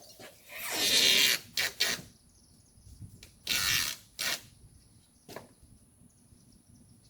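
Handling noises: several short rubbing or rustling bursts and a few sharp clicks, loudest about a second in and again a few seconds later, then quiet.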